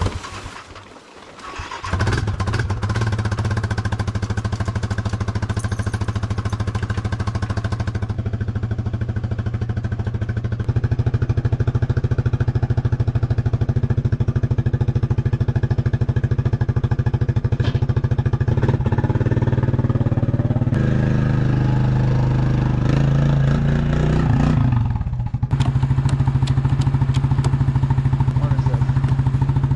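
A small vehicle's engine running steadily as it is driven. It picks up about a third of the way through and shifts in speed a few seconds before the end.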